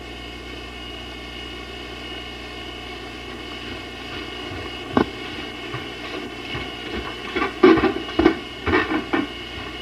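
Steady background hum, then a single sharp knock about five seconds in, followed by a quick run of thumps over the last three seconds.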